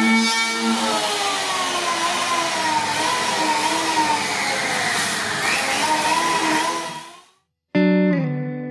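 Electric power planer running as it shaves a foam surfboard blank: a motor whine over a hiss, its pitch sinking slowly for the first few seconds and then wavering, fading out about seven seconds in. Near the end a plucked guitar chord begins and rings on.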